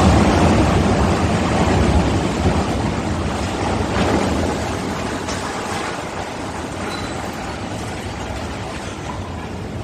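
Loud, dense rumbling din from a collapsing steel container gantry crane, mixed with wind buffeting the microphone. It is loudest at the start, swells again briefly about four seconds in, then slowly fades.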